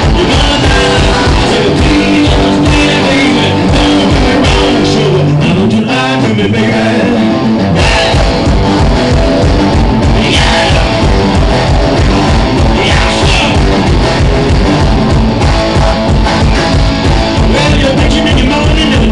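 Live one-man-band blues rock: an amplified electric guitar and a man singing over a foot-stomped beat. The beat drops out for a few seconds about four seconds in, then comes back.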